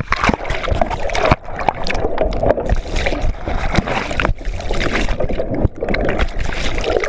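Churning water and bubbles around a submerged camera: a continuous loud rush of water, broken by many sharp knocks and splashes.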